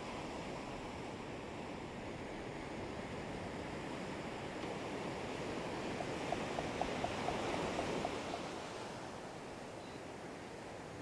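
Ocean surf washing and breaking on the beach, swelling about six seconds in as a wave breaks close by, with a run of light ticks over about two seconds.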